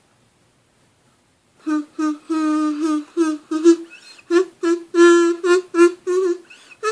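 Plastic kazoo played by humming into it: a run of short buzzy notes starting about a second and a half in, mostly on one low pitch and stepping higher near the end.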